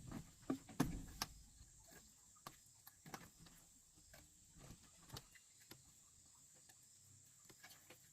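Scattered light knocks and clicks, several close together in the first second, then sparse taps over a quiet background.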